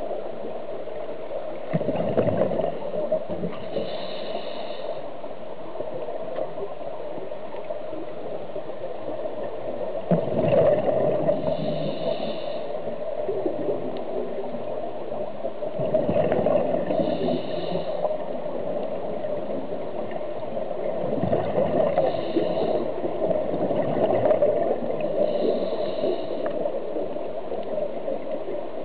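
A scuba diver breathing through a regulator underwater: about five slow breath cycles, roughly one every five or six seconds, each a short hiss of air through the regulator and a louder outpouring of exhaled bubbles, over a steady underwater noise.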